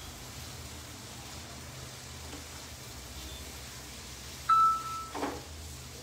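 A single loud electronic beep a little past four seconds in, one steady tone held about half a second, over a steady low kitchen hum. A short light knock follows about a second later, fitting the spatula tapping the frying pan as the paneer is stirred.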